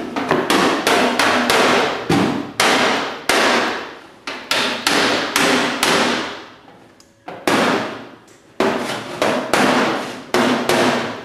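Repeated hammer blows on the sheet-steel body panel of a Toyota Land Cruiser, knocking out a large dent. The strikes come in runs, each ringing briefly, with short breaks about four and seven seconds in.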